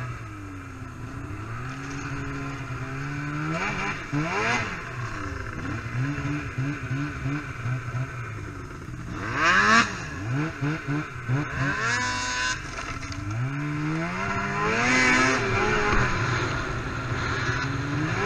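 Two-stroke snowmobile engine revving up and down again and again as the sled rides a rough trail, with louder rattly bursts where it hits bumps, the loudest about halfway through.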